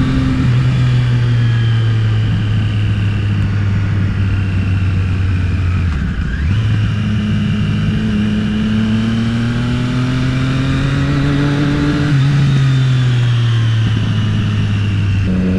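Triumph motorcycle engine under way on the road. The note holds steady, dips briefly about six seconds in, climbs slowly, then eases off near the end.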